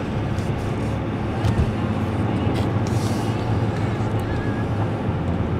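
Steady road and engine noise inside a moving car's cabin: a low drone with tyre hiss, and a brief rise in hiss about three seconds in.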